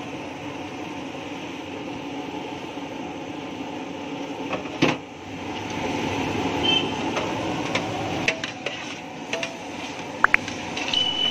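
Steady sizzling on a large flat griddle (tawa) as rice and chopped coriander are tipped onto hot bhaji, with clanks of metal utensils on the griddle. There is one sharp clank about five seconds in and a few smaller clanks near the end; the sizzle grows louder about halfway through.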